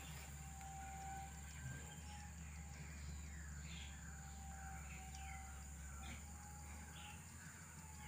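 Birds chirping in short sweeping notes, with an on-and-off whistled tone, over a steady high insect hum and a low steady rumble.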